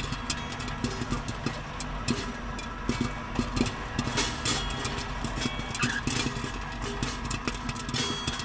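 A steady low drone with a hum underneath and many irregular crackling clicks over it, with a few brief high tones.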